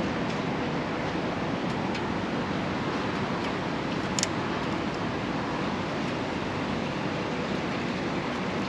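Steady rushing background noise, with a single sharp click about four seconds in.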